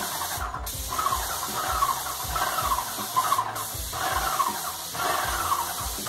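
Graco Magnum LTS 15 airless paint sprayer running under load while spraying: its piston pump whines up and down with each stroke, about twice a second, with low knocks in time and a steady hiss of paint atomising from the gun tip.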